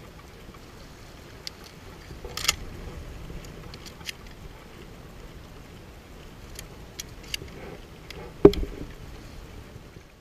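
Metal clicks and knocks of a camouflage pump-style shotgun being handled and loaded with shells, with the loudest knock, a solid clack, near the end.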